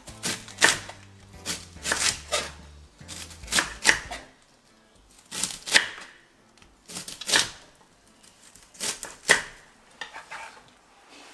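Chef's knife slicing red cabbage on a wooden chopping board: crisp chops, mostly in pairs, with short pauses between.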